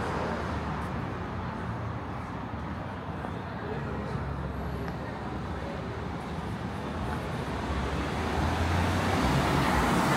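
Street traffic passing: a steady low engine rumble under a wash of road noise, growing louder near the end.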